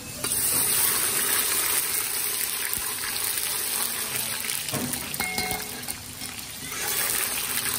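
Water rushing steadily, starting suddenly just after the start, easing off about five seconds in and picking up again near seven seconds.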